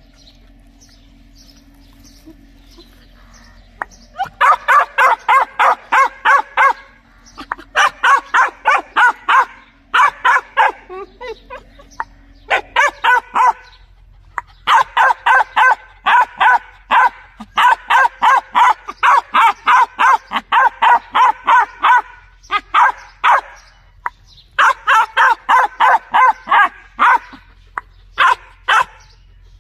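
Puppy barking in quick, high-pitched runs of about five or six barks a second. The barking starts about four seconds in and goes on in bouts of one to seven seconds with short pauses between them.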